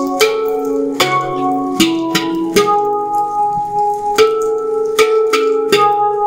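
Omana handpan played by hand: a slow melody of about ten single struck notes, each ringing on and overlapping the next.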